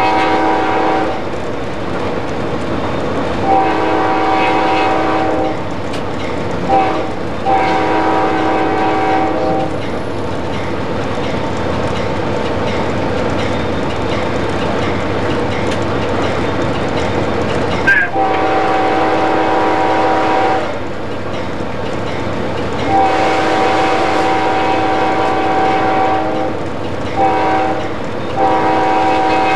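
Amtrak P40 locomotive's air horn heard from inside the cab, sounding the grade-crossing signal twice: a blast ending at the start, then long, short, long, and about eight seconds later long, long, short, long. Under it runs the steady rumble and clatter of the train at speed on the rails.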